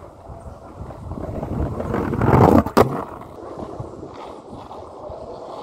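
Skateboard wheels rolling on rough asphalt, a low rumble that builds and peaks about halfway in. A single sharp clack of the board follows, then a softer rumble.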